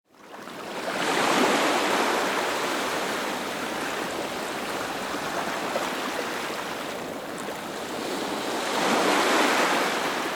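Ocean surf: waves washing in, swelling loudest about a second in and again near the end, with a steady rushing wash between.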